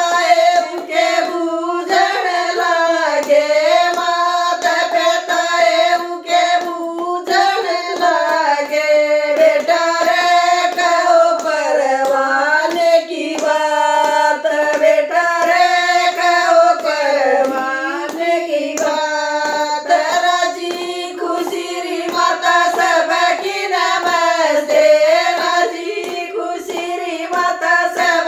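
A group of women singing a Haryanvi jakdi folk song, unaccompanied, clapping their hands along with the singing.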